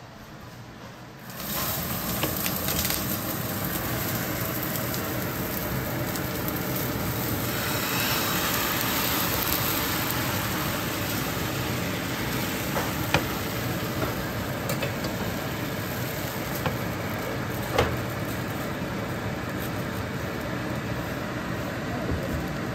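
Bánh xèo crepe batter sizzling in a hot nonstick frying pan, the sizzle coming in suddenly about a second and a half in and then holding steady. Two sharp knocks sound later on.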